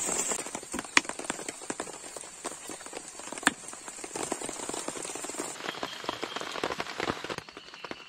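Heavy rain hitting a tent's fabric: a dense patter of drop impacts, with two louder single drops about one second and three and a half seconds in.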